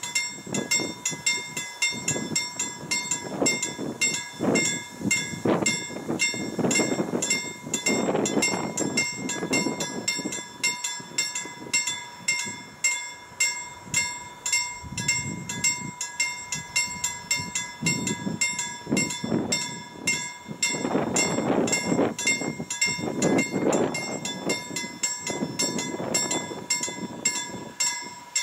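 Level crossing warning bell ringing steadily in an even, repeating rhythm while the barriers lower for an approaching freight train. Swells of low rumbling noise rise and fall underneath it.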